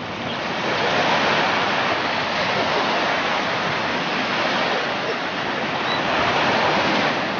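Surf washing onto a beach: a steady rushing hiss of breaking waves that swells and eases gently in level.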